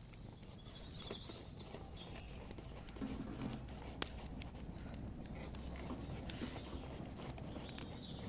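Sparse clicks and knocks of sticks being handled and pushed into a small portable wood-burning stove, over a low steady rumble.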